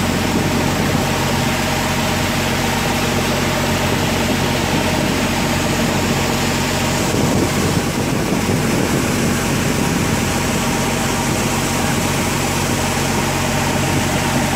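Fishing boat's engine running steadily at low revs, over a steady hiss.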